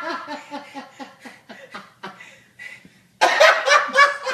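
Hearty laughter in quick repeated ha-ha pulses that die down over about two seconds, then break out loudly again about three seconds in.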